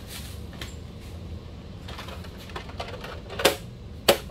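Protective plastic film being peeled off an RC car's plastic body shell: scattered crinkles and squeaks, then two sharper, louder plastic clicks about three and a half and four seconds in.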